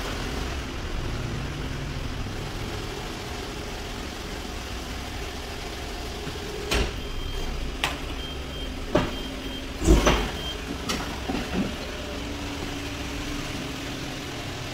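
Perodua hatchback engine idling steadily. A few sharp knocks come through over its hum in the second half, with one heavy thud about ten seconds in, and a faint beeping switches on and off around the same time.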